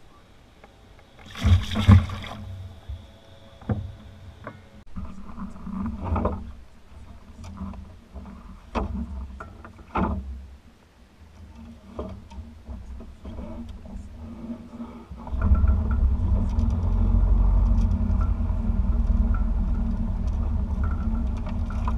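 A loud splash about two seconds in as a released bass kicks away in the lake water, then scattered knocks and clicks of handling in a small boat. From about fifteen seconds in, a steady low rumble takes over and is the loudest part.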